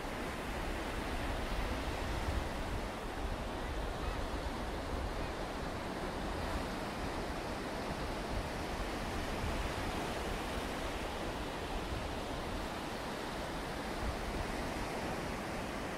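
Steady rush of sea surf breaking on a beach, with wind buffeting the microphone in low rumbles.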